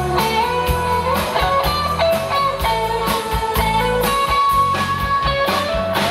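A live rock band playing: an electric guitar melody of long held notes over bass, keyboard and a steady drum beat.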